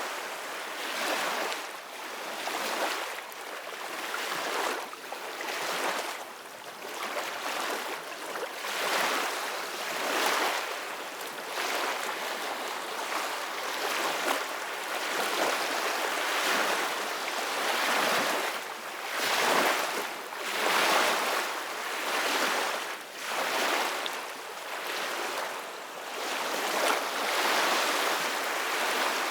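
Soft ocean waves washing in: a hiss of surf that swells and falls back about every two seconds.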